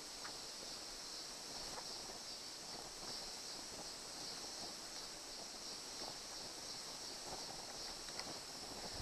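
Steady high-pitched chorus of insects, with a few faint light clicks.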